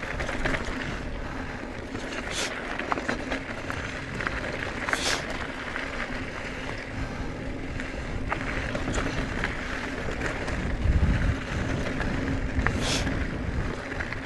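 Wind rumbling on the microphone with scattered light clicks, and three short sniffs about two, five and thirteen seconds in.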